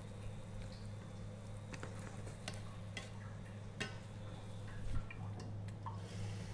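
Wooden chopsticks stirring sliced beef in broth in a stainless steel frying pan, tapping against the pan in irregular light clicks, over a steady low hum.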